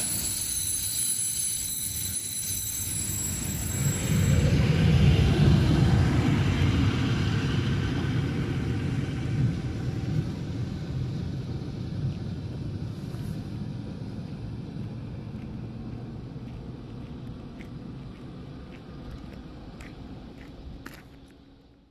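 Freight train of empty stake wagons rolling past on the rails, with a high thin wheel squeal over the first four seconds or so. The rumble is loudest about five seconds in and then fades steadily as the train draws away.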